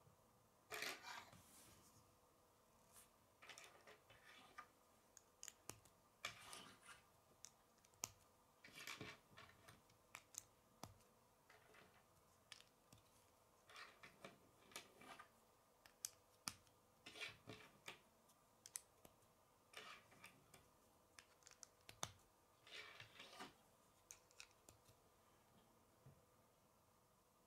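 Plastic K'nex pieces being handled and snapped onto a hub connector: a run of small, irregular clicks, with a few short scraping sounds as the pieces are pushed and rubbed together.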